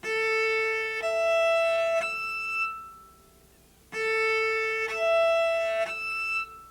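Cello natural harmonics from a string divided into six equal parts, bowed as a short phrase of three clear, high, sustained notes. The phrase is played twice with a short pause between.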